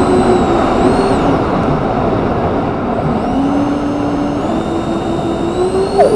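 Twin electric ducted fans of an RC A-10 model whining under a steady rush of air over the onboard camera. The fan tone dips in pitch about three seconds in, then rises steadily toward the end as the fans speed up.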